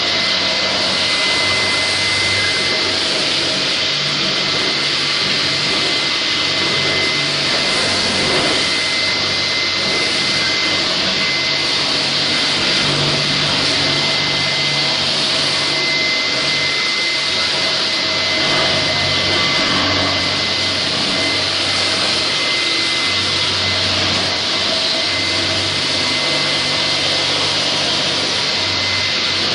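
Linax K-30ENV electric floor grinder grinding a concrete floor, running together with its dust-collector vacuum. The sound is a loud, steady mechanical noise with a constant high whine over an even hiss.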